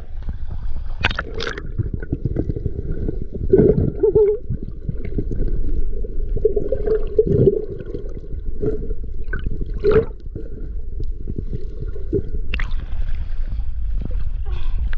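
Sea water sloshing and gurgling around a camera at the waterline, with a few sharp splashes. For most of the middle the sound is muffled, as from underwater, and it opens out again near the end when the camera comes back to the surface.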